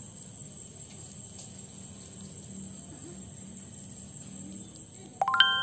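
A steady, high-pitched insect trill, like crickets, running on under faint outdoor background. About five seconds in, loud ringing chime-like notes of background music come in and quickly become the loudest sound.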